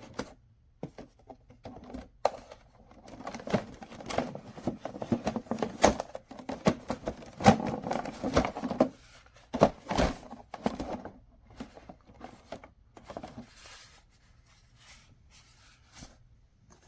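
Hard plastic shower head parts being handled: irregular clicks and knocks with bits of rustling, quieter for the last few seconds.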